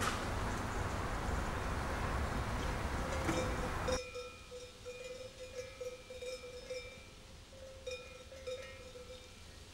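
Steady hiss from an old reel-to-reel tape recording for about four seconds, cutting off abruptly. Then, quieter, bells tinkle faintly and irregularly.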